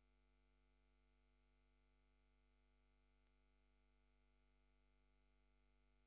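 Near silence: only a faint steady electrical hum on the recording.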